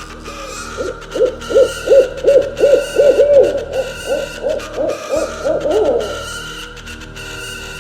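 An owl hooting a quick series of short notes, about fifteen in all, that come closer together as the series goes on and then stop about six seconds in, over soft sustained background music.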